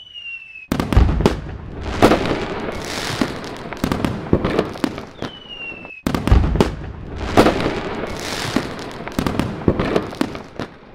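Fireworks: a rocket's short falling whistle, then a string of loud bangs and crackling bursts. The sequence cuts off and starts over about six seconds in, with the whistle and then another run of bangs and crackles.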